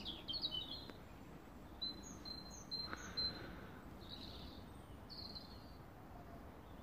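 Small birds chirping: a quick run of short, high notes in the first few seconds, then a couple more, over faint steady background noise.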